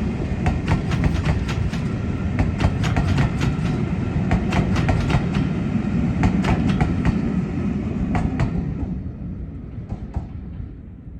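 A train passing close by: a steady rumble with a rapid run of sharp wheel clicks over the rail joints, which stop about eight and a half seconds in as the sound fades away.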